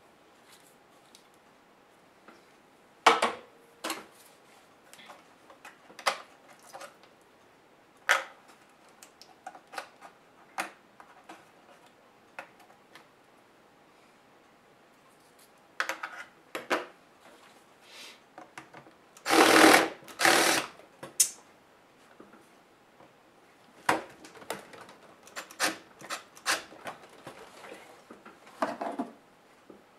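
Hands working on the underside of an HP G71 laptop: scattered clicks and taps of small plastic and metal parts as the memory modules are unclipped, lifted out and set down on the desk. Two louder, longer noises of about half a second each come about two thirds of the way through.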